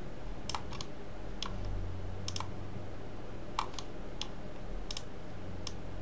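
Scattered clicks of a computer mouse and keyboard, some in quick pairs, over a steady low hum.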